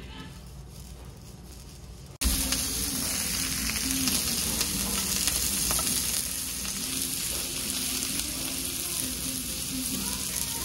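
Pork belly, shrimp and abalone sizzling on a hot tabletop griddle, a steady loud sizzle. It starts abruptly about two seconds in, after a quieter stretch.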